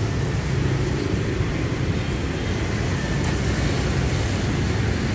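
Steady rumble of street traffic going by.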